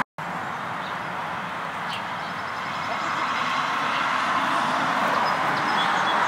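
Steady outdoor background hiss that swells slightly partway through, with a few faint, short, high chirps.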